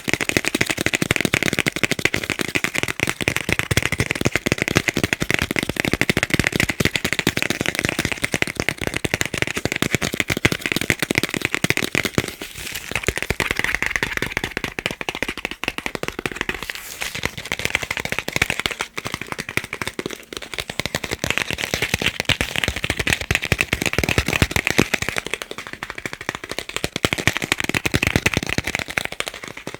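Fast, continuous tapping on chocolate: a dense stream of quick, crisp clicks that eases off a little about halfway through, then picks up again.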